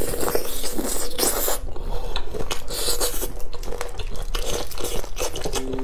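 Close-miked eating: biting and chewing food with a run of crunches and wet, squishy chewing sounds.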